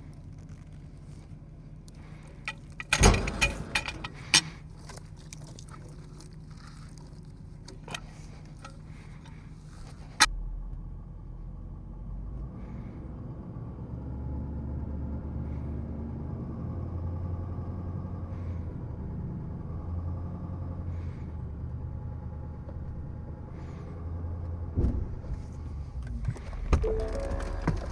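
Truck engine idling with a burst of loud clattering about three seconds in; after a sharp knock at about ten seconds the engine pulls harder and steadily as the truck drives away from logs chained to a stump, dragging them off the load, with thuds and clatter near the end.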